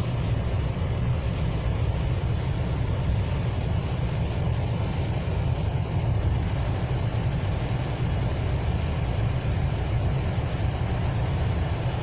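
Steady road noise heard inside a moving car's cabin: a low, even rumble of engine and tyres running on a wet, snow-covered road.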